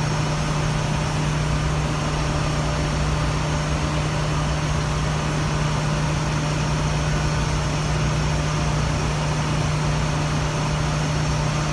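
Steady drone of a ship's engine-room machinery, with running pumps and a purifier among it, carrying a strong constant low hum.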